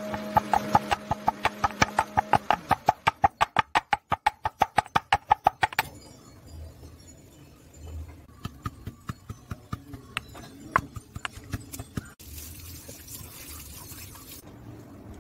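Stone pestle pounding dried, smoked meat in a stone mortar: a quick, even run of sharp knocks, about five a second, for the first six seconds, then slower, softer knocks as the meat is broken into shreds.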